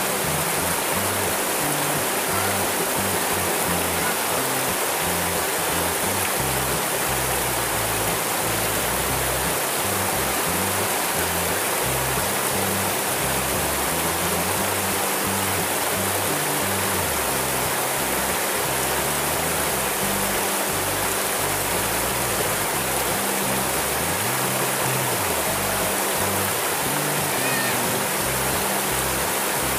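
Shallow river water rushing steadily over a low weir of rocks, a loud unbroken rush. Music plays underneath it.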